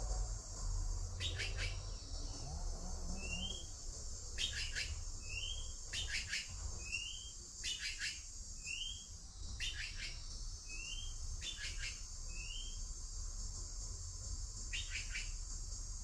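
A steady high-pitched insect drone, with a bird repeating a short rising chirp about every two seconds. Between the chirps come short raspy double or triple calls.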